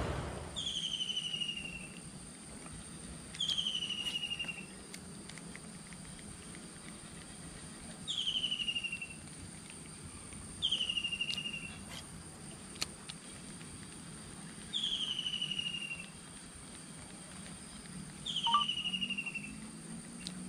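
A repeated animal call from the streamside forest: six falling, rapidly pulsing calls, each about a second long and a few seconds apart, over a faint steady high whine, with a few faint clicks.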